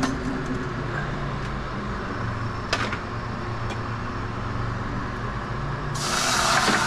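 Steady low hum with a few light clicks; about six seconds in, a loud rushing hiss comes in suddenly.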